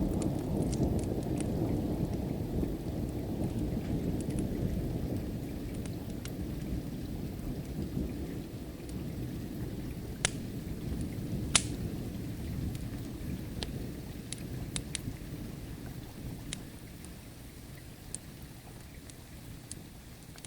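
Long rolling rumble of distant thunder that slowly dies away, over steady rain. Sharp crackles and pops from a wood fire come through now and then, two louder pops about ten and eleven and a half seconds in.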